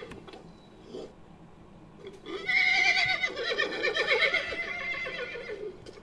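Horse whinny sound effect, starting about two seconds in and lasting about three seconds, with a trembling, wavering pitch.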